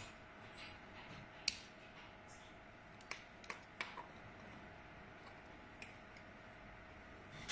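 A handful of short, sharp clicks, the loudest about one and a half seconds in and a cluster between three and four seconds, over a faint steady hum.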